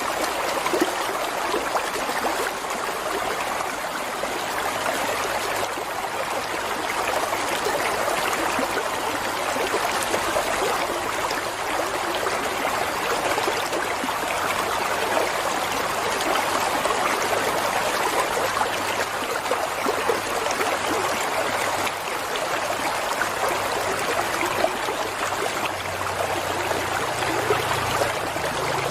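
Flowing water running steadily, with no break or change.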